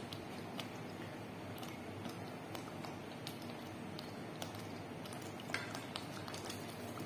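Thick chili shrimp-paste (alamang) sauce cooking in a pot, bubbling with small irregular pops over a steady hiss.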